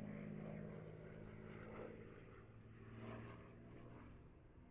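Faint, steady drone of a distant P-51 Mustang's Merlin V-12 engine, fading as the aircraft draws away.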